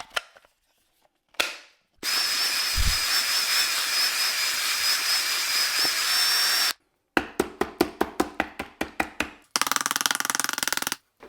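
Power drill with a mixing paddle running steadily in clay slurry for about five seconds, with a high motor whine, then a run of rapid repeated strokes near the end.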